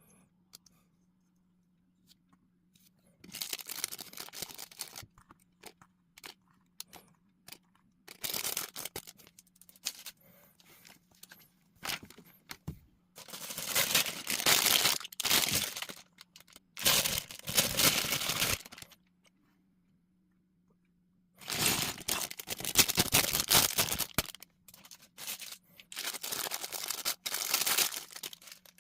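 Plastic LEGO parts bags being torn open and crinkled, in about six rustling bursts of a couple of seconds each, with small clicks in between.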